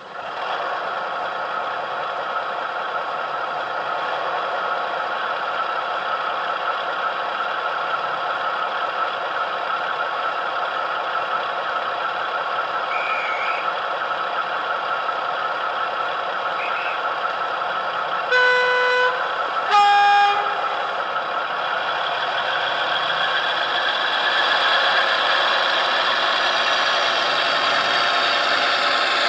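DCC sound decoder in a model of the prototype diesel locomotive Falcon, playing its recorded diesel engine through the model's small speaker. The engine comes in suddenly and runs steadily. Two horn blasts sound after about eighteen seconds, the second lower than the first, and the engine then revs up toward the end as the locomotive pulls away.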